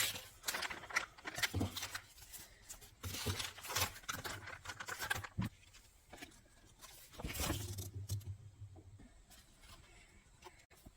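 Toy packaging being handled and opened: irregular rustling, crinkling and small clicks of cardboard and plastic, in bursts with short pauses.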